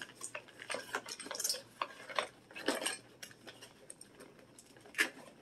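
Toy packaging of cardboard and hard plastic being worked open by hand: irregular clicks, crackles and rustles as a plastic toy is pulled out of its box, with a sharper click about five seconds in.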